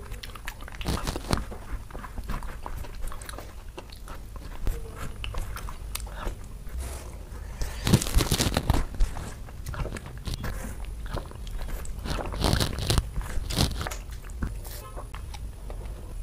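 Close-miked eating by hand from a banana leaf: wet fingers squishing and scooping rice and curry against the leaf, and chewing with mouth smacks. The sounds come as irregular crackly clicks, loudest in clusters about halfway through and again a few seconds later.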